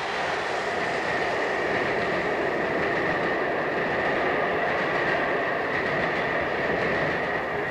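A train running: a steady rumbling rattle that swells over the first second, with a thin steady high tone above it.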